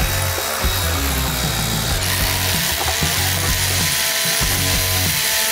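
Milwaukee cordless electric ratchet whirring as it spins out valve cover bolts on the LS engine, under background music.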